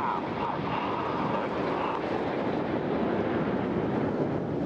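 BAE Hawk T1 jet trainers flying past in formation: steady, unbroken jet engine noise.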